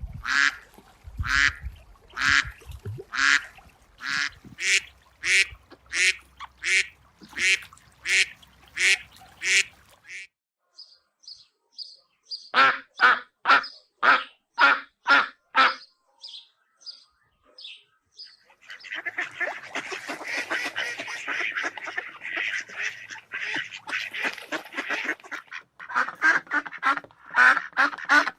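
Ducks quacking in long runs of repeated calls, about two a second at first. In the middle come high short notes alongside a shorter run of quacks, then a dense, continuous chatter of many birds, and steady quacking again near the end.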